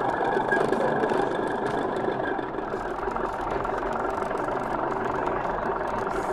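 DCC sound decoder in an SM32-scale model internal-combustion locomotive playing an engine running sound through its onboard speaker, steady throughout.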